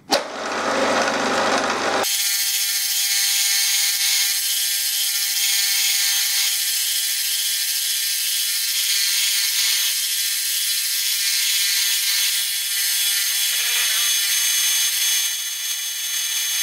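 Milling machine spindle running while a drill cuts into the edge of a metal plate: a steady hiss of cutting over a thin whine. A knock comes right at the start, and the sound changes abruptly about two seconds in.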